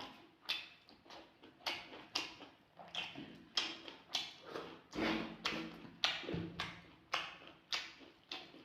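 Close-miked eating sounds: wet chewing and lip-smacking on chicken curry and rice, in quick irregular strokes about two or three a second.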